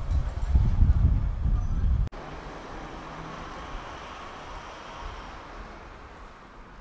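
Outdoor street ambience: a loud, gusty low rumble of wind on the microphone for about two seconds, then a sudden cut to a quieter, steady hum of distant traffic.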